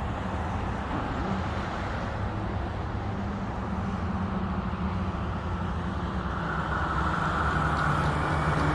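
Street traffic: a steady low engine hum with road noise, getting a little louder near the end.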